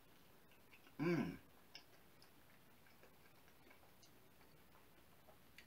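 Faint wet clicks and smacks of a person chewing a mouthful of food, irregularly spaced, with a short voiced hum about a second in.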